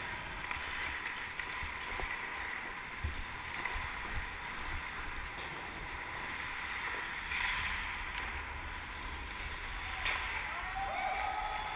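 Ice-skate blades gliding and scraping on rink ice, with a low rumble of wind on the microphone; sharper scrapes about seven and ten seconds in.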